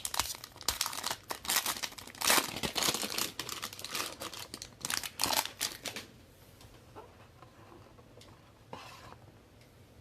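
Plastic wrapping crinkling and tearing as a trading-card box and pack are ripped open, a run of rapid rustling for about six seconds, then only a few faint handling clicks.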